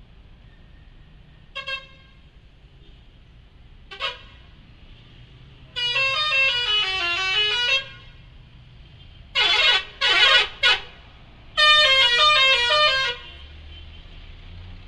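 Bus 'telolet' musical horn playing tunes. Two short toots come first, then a melody of about two seconds with the notes stepping down and back up, three quick blasts, and a second melody of about a second and a half.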